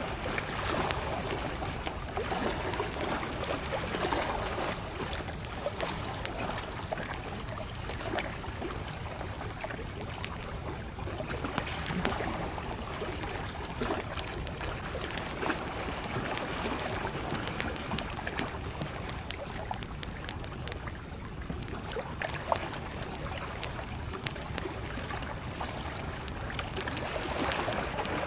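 Small waves lapping and sloshing at a lakeshore, with a wood campfire crackling: scattered sharp pops and snaps over a steady wash of water.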